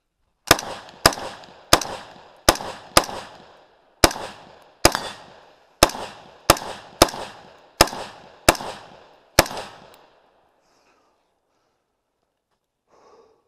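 Thirteen shots from a DPMS 3G1 AR-15 rifle in .223 Remington, fired semi-automatically at an uneven pace of about one every half second to second. Each shot has a short echo tailing off behind it. The string stops about nine and a half seconds in.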